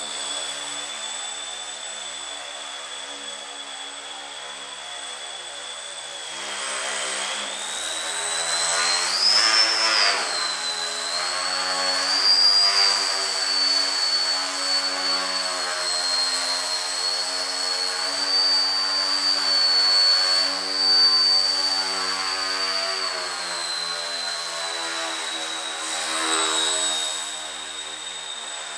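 Electric motor and propeller of a Breeze Pro FP3 indoor foam plane in flight, a steady high whine that rises and falls with the throttle. It runs softer for the first few seconds, then swells in several louder spurts through the middle as the power comes up, easing off again near the end.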